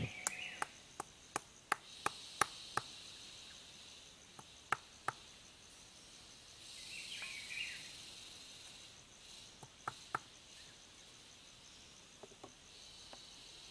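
Short, sharp wooden taps and knocks, irregular and in clusters, as sharpened wooden stakes are worked into the soil to form a pot stand. A steady high insect drone goes on underneath, with a brief louder chirping swell about halfway through.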